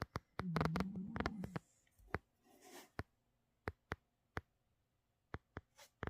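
Sleeping Russian Blue cat snoring: one droning snore lasting about a second, starting about half a second in, followed by a soft breathy hiss a second later. Scattered sharp clicks run through the rest.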